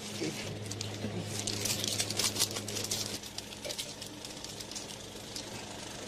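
Rapid crackling and clicking, densest about one to three seconds in, over a steady low hum.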